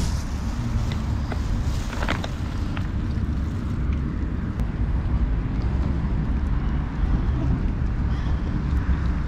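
Steady low rumble of wind buffeting the microphone, with a few faint ticks.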